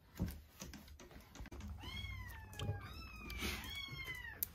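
Young kittens meowing: three or four high, falling cries from about two seconds in, after a few soft clicks. They are rescued kittens waiting for their bottle of milk.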